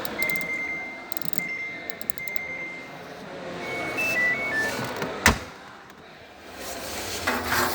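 Electronic beeps from a washing machine's control panel: a long beep broken twice, then a short five-note chime tune, followed by a single sharp click a second later.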